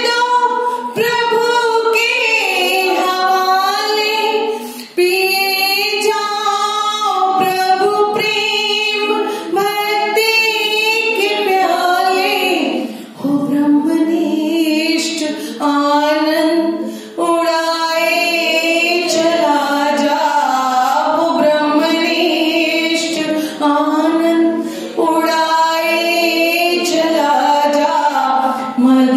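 A woman singing a song in Hindi, long sustained phrases with short breaks between them.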